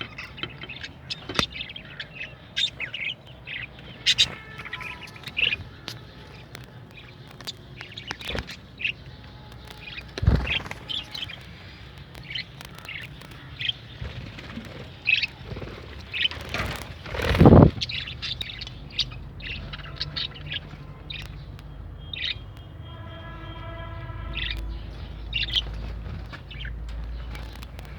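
Pet lovebirds and other small parrots chirping in many short calls. Two loud thumps come about ten and seventeen seconds in, and a held pitched tone lasts about two seconds near the end.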